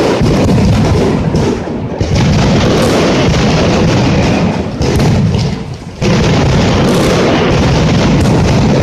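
Mascletà: a dense, rapid barrage of firecracker bangs fused into one continuous loud crackle. It thins briefly about a second and a half in and again around five seconds in, then snaps back to full force each time.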